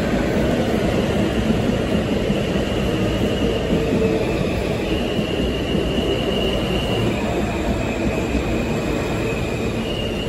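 R160 subway train arriving at a station platform: a steady rumble of steel wheels on the rails, with a high thin whine that comes in about three seconds in and shifts in pitch in steps.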